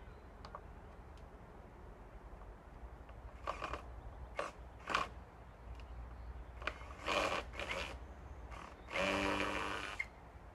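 Power drill run in several short trigger bursts, then a longer run of about a second near the end that fades as it stops, as it works at a joint of the wooden pole frame.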